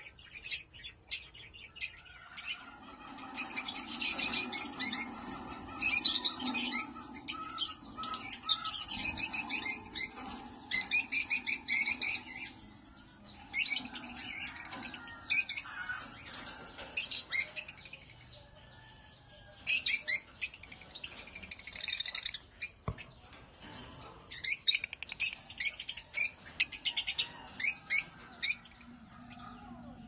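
Lovebirds chattering: rapid, high-pitched chirps and squawks in bursts of a second or two, repeating again and again with short pauses between.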